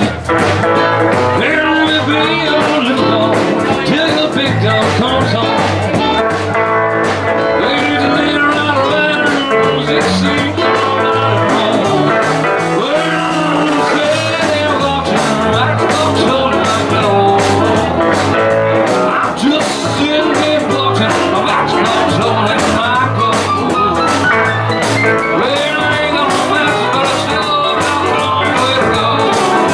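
Live rockabilly band playing: electric guitar over a steady beat, with a man singing.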